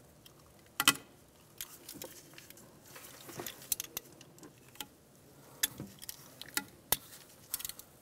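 Utility knife cutting a rubber heater hose off its old fitting: scattered sharp clicks and short scrapes at irregular intervals, the loudest a little under a second in and again near the end.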